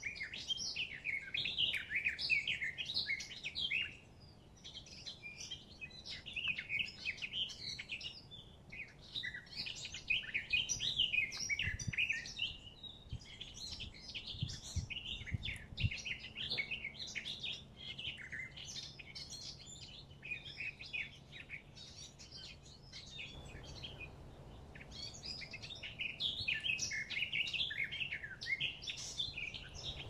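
Songbirds singing: a dense run of quick, high chirps and trills that comes in bouts of a few seconds, with brief pauses about four seconds in and again near the end.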